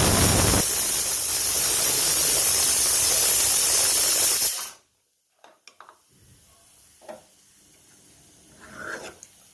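Loud steady hiss that cuts off suddenly about four and a half seconds in, followed by a few faint clicks and knocks.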